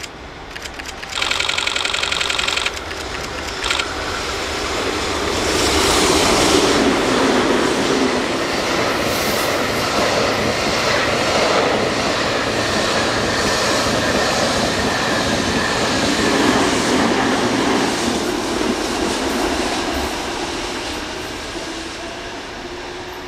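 M250 series Super Rail Cargo electric freight train passing close by: a short horn blast of about a second and a half just after the start, then the rushing rumble and clatter of its wheels and container cars, which swells, holds for over ten seconds and fades away near the end.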